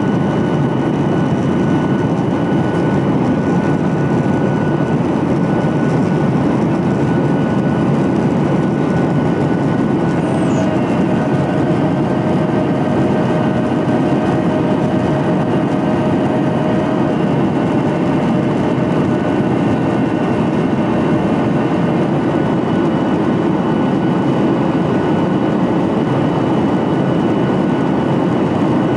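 Boeing 737-800's CFM56 jet engines running: a loud, steady rumble with a few steady whining tones above it.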